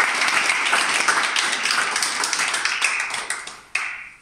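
Applause from a small group of people clapping, dying away near the end.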